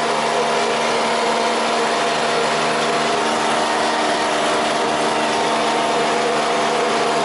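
Small tractor's engine running at a steady speed while driving along the road, a constant fairly loud drone with a hiss over it.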